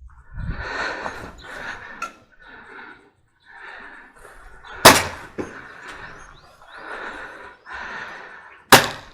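Airsoft gun firing two single shots, about four seconds apart, each a sharp crack; a fainter snap follows just after the first.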